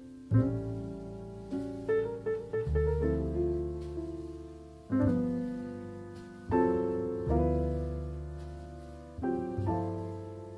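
Slow solo piano background music: chords struck every second or two, each left to ring and fade before the next.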